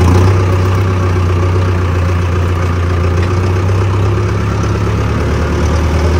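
Diesel tractor engine running steadily with an even, low drone.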